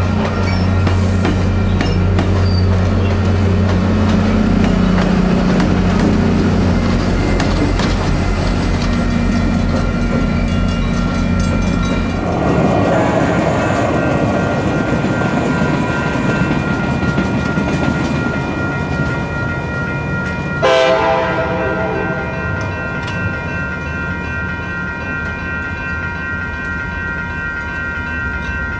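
A departing Coaster commuter train's diesel drone and the clatter of its bi-level cars' wheels on the rails. After a cut, the horn of an approaching Coaster F40PH locomotive sounds about two-thirds of the way in: one long blast of several chime tones.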